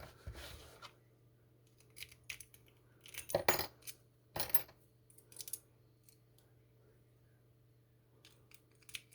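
Metal rake pick scraping and clicking against the wafers of a cabinet wafer lock: scattered short metallic clicks and rattles, the loudest a little past three seconds in.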